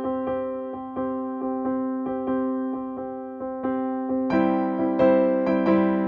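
Background music: soft piano playing held chords with gently repeated notes at an even pace, growing fuller and a little louder just past four seconds in.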